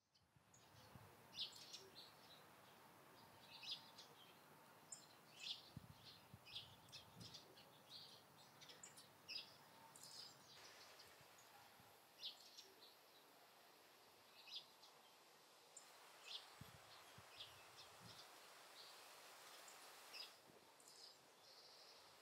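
Faint wild birds calling outdoors: many short, high chirps scattered irregularly over a soft steady background hiss.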